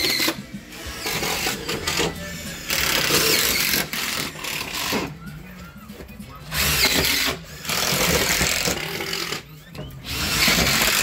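A handheld power tool runs in short bursts of one to two seconds, starting and stopping several times, as the crew works on a privacy fence.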